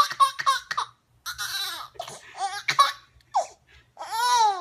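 Baby laughing in bursts of quick, high-pitched giggles, ending with a longer high call that rises and falls near the end.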